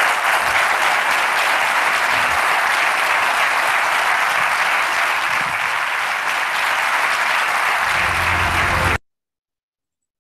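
Auditorium audience applauding, a steady sustained clapping that cuts off suddenly about nine seconds in as playback stops. A low tone comes in shortly before the cut.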